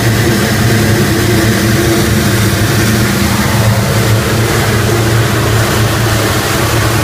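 Rotec R3600 nine-cylinder radial aircraft engine running steadily on a test stand, its fuel flow reading about 28 litres an hour.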